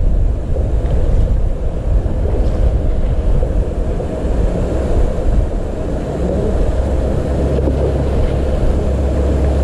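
Wind buffeting the microphone: a loud, steady low rumble, with a steadier low hum coming in near the end.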